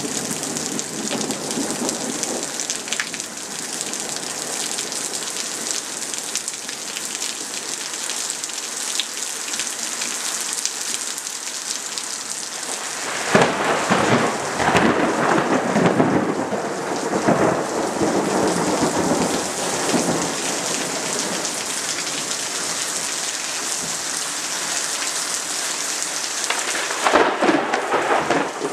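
Heavy rain falling steadily, with thunder rumbling and crackling in long rolls from about halfway through and again near the end.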